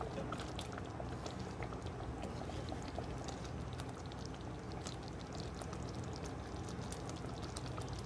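Thick tomato-and-paneer gravy simmering in a cast iron kadai, with many small bubbles popping throughout over a steady low hum.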